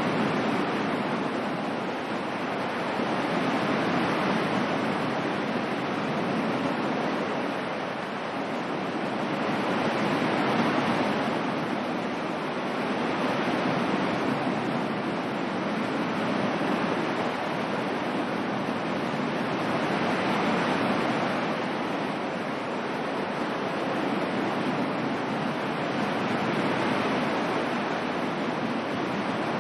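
Ocean surf: a steady rushing of waves that swells and fades slowly, a surge every six seconds or so.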